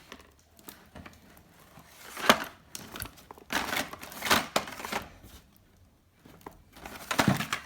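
Packaging crinkling and rustling as it is handled, in several irregular bursts, with a sharp clack about two seconds in.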